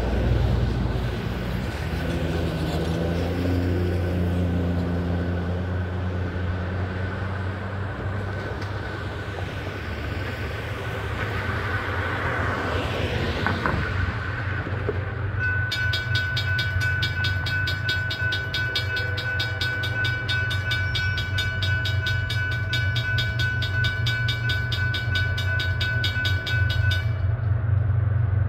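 Cars pass on the road over a steady low rumble. About halfway through, the crossing's WCH mechanical bell starts ringing, a fast, even run of strikes that sounds a little clicky and that the uploader fears needs maintenance. It stops shortly before the end.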